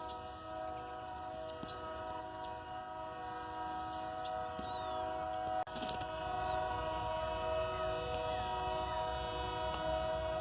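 Train horn stuck on, sounding one unbroken steady chord of several tones. It grows gradually louder, with a low rumble of the train rising under it in the second half, and there is a brief dropout a little past halfway.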